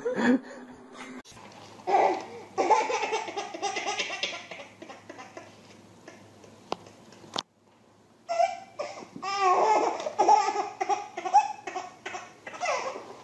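A baby laughing in repeated bursts, with a brief break about halfway through.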